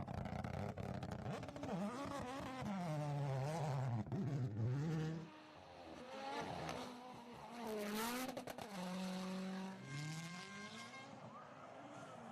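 Rally car engines revving hard, the pitch climbing and dropping repeatedly through gear changes and lifts as cars pass. There is an abrupt cut about five seconds in, then more revving.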